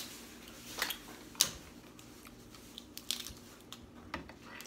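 Snow crab legs cracked and picked apart by hand: a few sharp shell snaps, the loudest about a second and a half in, with softer crunching between.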